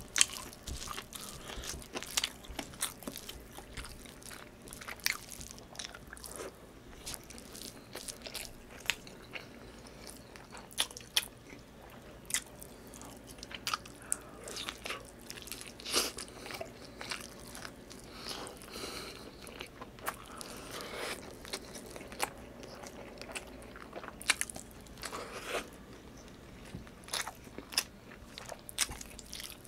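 Close-miked eating: a man biting and chewing chicken adobo and rice eaten by hand, with many sharp, irregular mouth clicks throughout.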